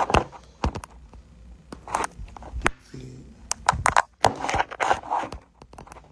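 Handling noise of a phone being moved about: rustling and scraping with a run of sharp clicks and knocks, in three clusters.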